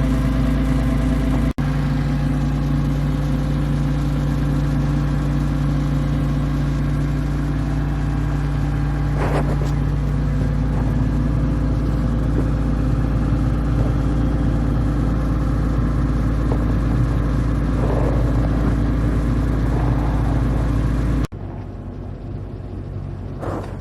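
Diesel engine of an Atlas 190 LC tracked excavator running steadily. The sound drops out for an instant about a second and a half in, and near the end it falls suddenly to a quieter level.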